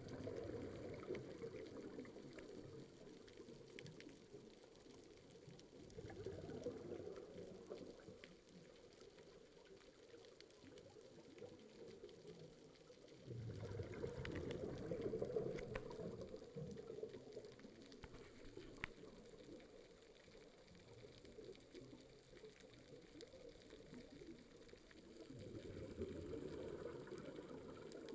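Scuba diver's exhaled bubbles from a regulator, heard underwater: four rushes of bubbling several seconds apart, the loudest about halfway through, with quieter breathing pauses between.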